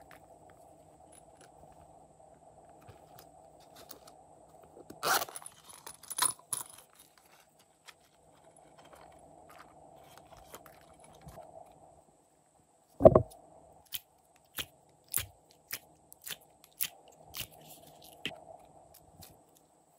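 Hands working slime and clay add-ins: rough scraping and crunching about five seconds in, then a single sharp knock. After the knock comes a string of short wet clicks, about two a second, as slime is squeezed, all over a faint steady hum.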